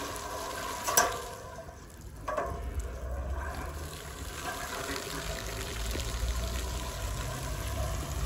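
Water running and pouring out of a radiator as it is flushed through a copper pipe pushed inside, washing out built-up sludge. There is a sharp knock about a second in.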